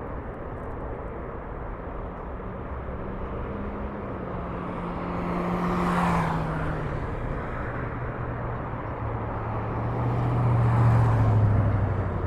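Road traffic passing on an overpass: a steady traffic hum, with two vehicles going by, about six seconds in and near the end, each bringing a low engine hum that swells and slowly drops in pitch.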